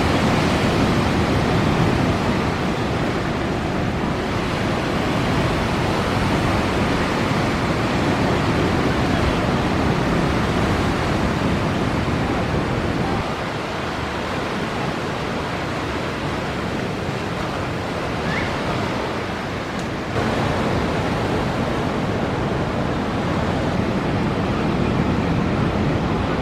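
Ocean surf: a steady wash of breaking waves, with some wind on the microphone. The loudness drops a little in the middle and jumps back up suddenly about 20 seconds in.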